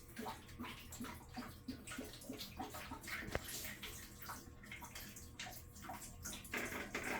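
Water pouring and splashing into the tub of a Maytag top-load commercial washer as it fills, with one sharp click about three seconds in. A steadier hiss comes in near the end.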